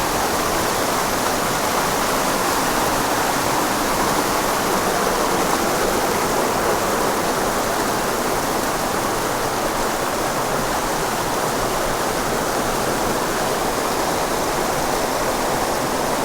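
Creek water cascading over rocks, a steady, unbroken rush.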